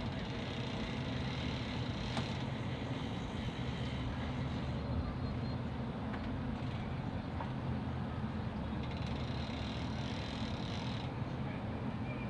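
Outboard motors on a tritoon pontoon boat running steadily in gear, a low even drone, while the boat is manoeuvred at the ramp.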